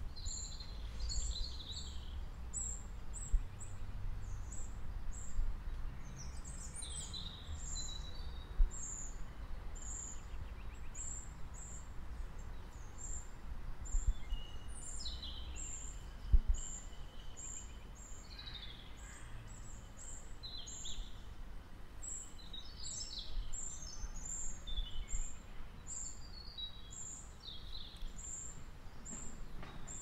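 Several songbirds singing: one bird repeats a high thin note over and over, while others add short chirping phrases. Under them is a steady low rumble, with a few brief low thumps.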